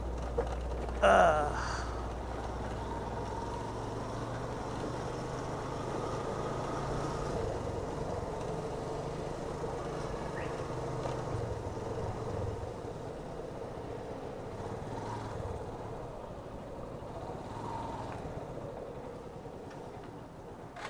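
Motorcycle engine running at low speed as the bike rolls slowly along, its note wavering a little and easing off near the end. A short loud burst sounds about a second in.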